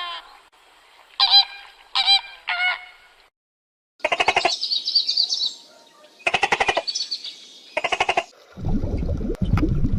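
Animal calls: four short pitched calls that bend in pitch in the first three seconds, then three buzzy calls made of rapid pulses. A low, rough noise starts near the end.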